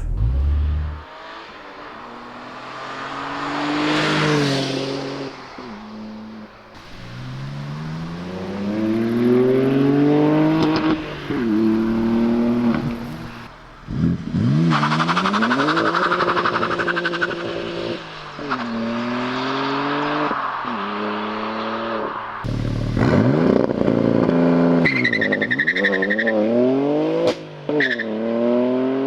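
BMW M3 G80's S58 twin-turbo straight-six, with its petrol particulate filter and mid silencer removed, accelerating hard. The revs climb and drop back sharply at each gear change, several times over.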